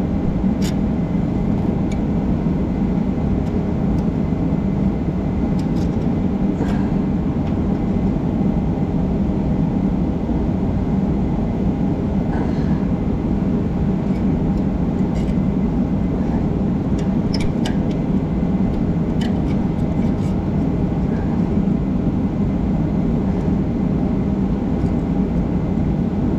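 A steady droning hum, with about ten faint, short metallic clicks scattered over it as needle-nose pliers work old heli-coil thread inserts out of the radiator's bolt holes.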